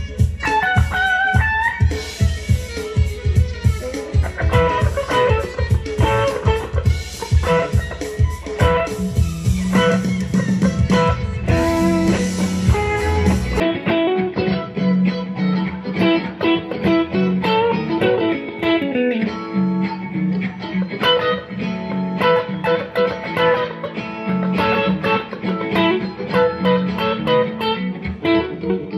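Electric guitar played through McL V2 clone single-coil pickups, mixing picked single notes and chords, with a regular low pulse underneath. About 14 seconds in the sound changes abruptly: the low pulse and the top treble drop away, leaving a thinner, duller guitar tone.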